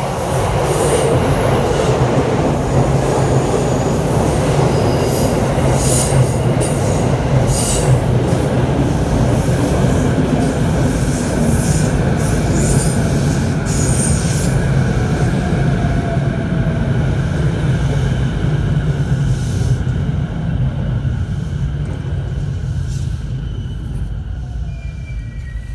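JR East Saikyo Line E233 series electric commuter train running past close to the track, a loud steady rumble of wheels on rail with sharp clicks and rattles through the first half. The sound fades away over the last few seconds as the end of the train goes by.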